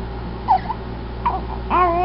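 A baby girl babbling: two short squeaks, then a longer pitched vocal call near the end.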